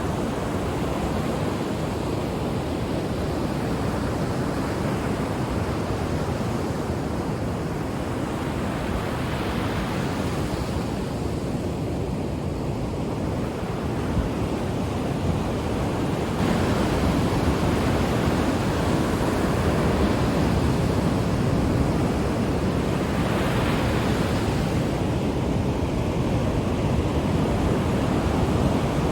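Ocean waves breaking on a shore: a continuous wash of surf that swells as each wave breaks, and gets louder a little past the halfway point.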